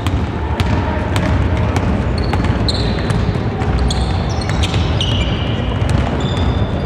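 Basketball bouncing on a hardwood court as players dribble and run, with short high-pitched sneaker squeaks on the floor, over a steady low rumble.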